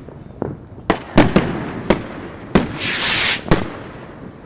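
Fireworks going off: a string of sharp bangs, about seven, with a loud hissing crackle about three seconds in.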